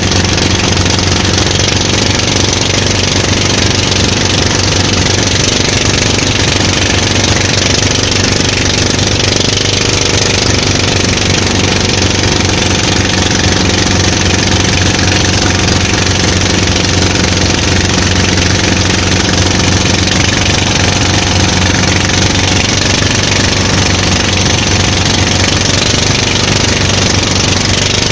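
A boat's engine running steadily under way, a loud low drone with no change in speed, over a steady rushing noise.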